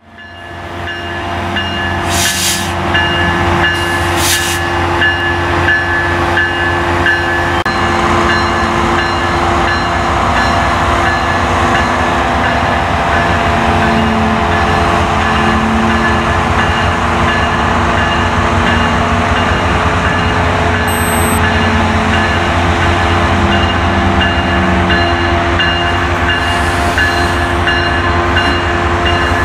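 Metro-North Brookville BL20GH diesel locomotive No. 128 running steadily as it approaches, its engine drone rising in over the first second or two and then holding level with several steady tones over it.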